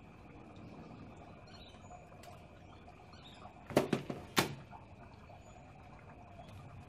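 A few sharp knocks just past the middle, close together and then one more about half a second later, over a low steady background with faint bird chirps.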